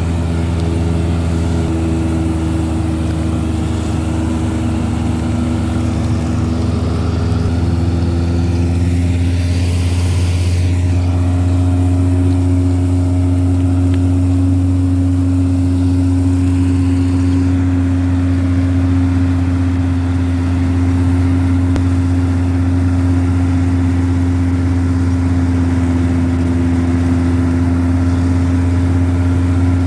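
Wheat combine harvester's engine running steadily with a deep, even hum. A short rushing hiss comes about ten seconds in, and the engine tone shifts slightly just after.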